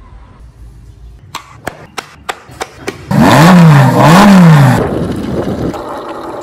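Car engine sound effect: a run of sharp, quickening clicks, then the engine revs twice, each rev rising and falling in pitch, before settling lower and fading.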